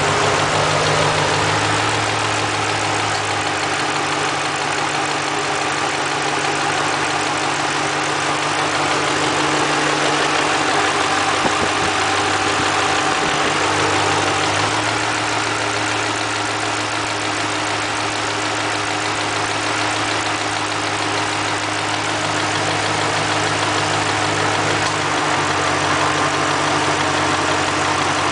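2005 Ford Mustang GT's 4.6-litre V8 idling steadily, with a clunking from the cam phasers that the owner judges normal for this engine rather than a fault.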